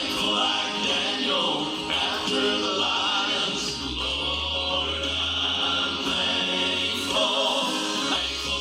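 A group of voices singing a gospel song in harmony.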